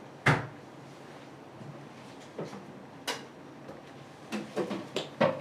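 Sharp knocks and clacks of dishes and utensils being handled at a sushi counter. There is one loud knock just after the start, two single ones around the middle and a quick run of several near the end.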